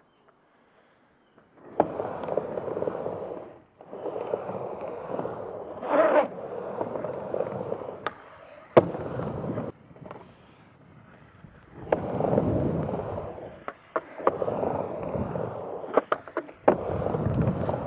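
Skateboard wheels rolling up and down a wooden vert ramp, starting about two seconds in, broken by sharp clacks and knocks as the trucks and board strike the ramp's metal coping and deck. The knocks come most often near the end.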